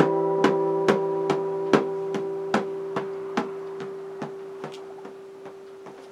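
Final acoustic guitar chord of a song ringing out and slowly fading. A steady tick, about two and a half a second, fades away with it.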